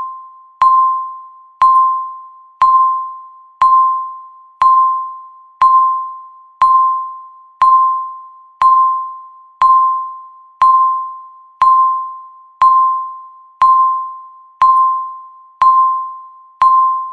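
Countdown timer beep sounding once a second: a single steady pitched tone, each beep starting sharply and fading away before the next.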